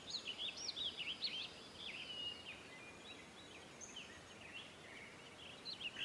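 Faint bird chirps and twitters, many quick notes close together in the first two seconds or so, then fewer and more scattered.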